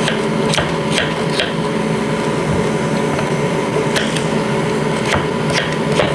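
Kitchen knife chopping on a wooden cutting board: about nine sharp, irregularly spaced knocks. Under them runs a steady hum from a kitchen appliance.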